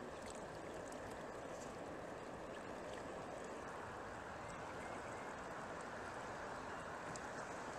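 Steady rushing of a river with a good current, heard from a kayak out on the water, with a few faint small splashes.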